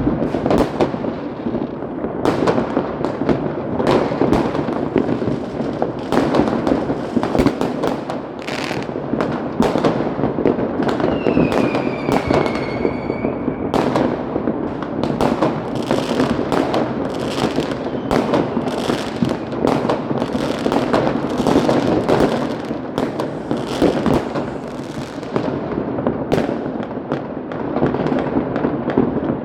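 Many fireworks and firecrackers going off at once in a dense, unbroken run of bangs and crackling. About eleven seconds in, a whistling firework sounds for a couple of seconds, its whistle falling slightly in pitch.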